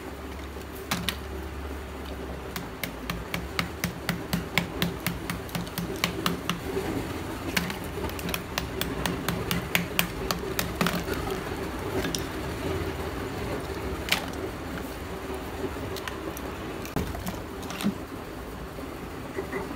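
Small hammer tapping and chipping at a slab of black-roasted multani mitti (fuller's earth clay): a quick run of sharp, clicking taps through the first half that thins to occasional taps later.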